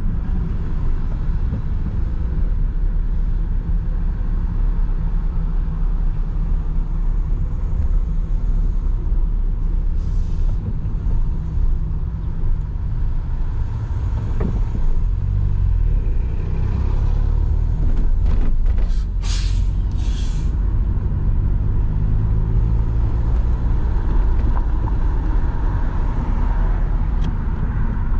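Car driving in city traffic: a steady low rumble of engine and road. About two-thirds of the way through come a few short, sharp hisses.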